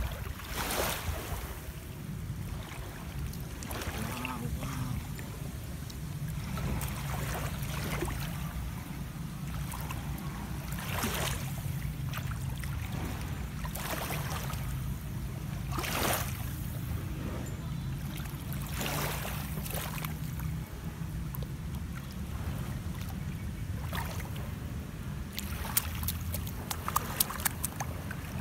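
Small waves washing in over a shallow sandy shore every few seconds, over a steady low rumble of wind on the microphone. A few sharp clicks near the end.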